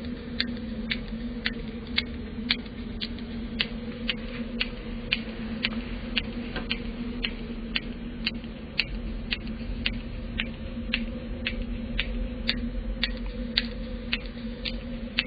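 Sharp, regular ticking, about two ticks a second, over a steady low hum.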